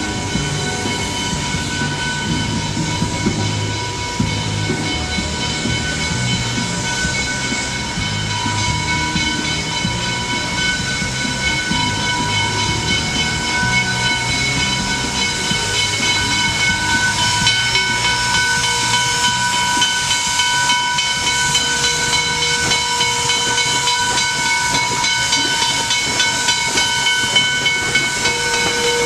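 Pennsylvania Railroad 643, an 0-6-0 steam switcher, hissing steam steadily, with several steady high tones over the hiss. Near the end its exhaust beats come through evenly as it passes close by.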